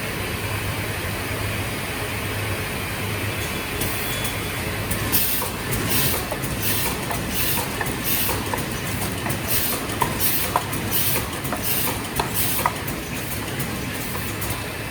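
Debao embossed paper sleeve forming machine running: a steady mechanical hum, joined about five seconds in by rhythmic sharp clacks and hisses about twice a second as it cycles.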